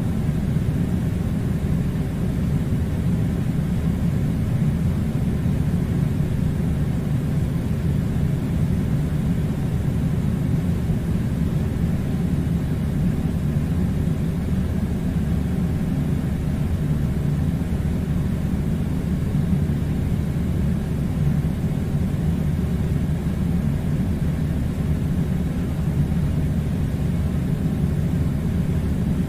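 Air conditioner running with a steady low rumble.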